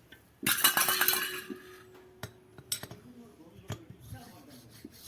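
A burst of metal-on-metal clattering about half a second in, leaving a short ringing tone, followed by scattered light clinks of metal tools and parts being handled.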